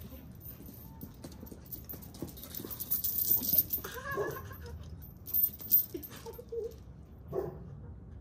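A dog chasing a flirt-pole lure across dry grass and dirt: rattling, rustling bursts about three and five and a half seconds in, with short dog yelps about four seconds in and again near the end.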